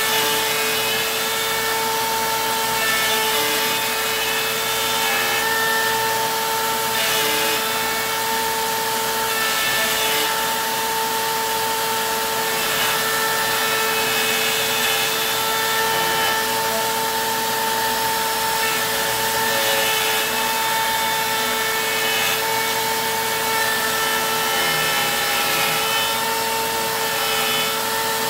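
Compact trim router at full speed (setting 9) with an end mill, milling the pocket of an 80% lower receiver in light passes. A steady high whine runs throughout, with scratchy cutting noise that swells and fades as the bit is guided along the pocket.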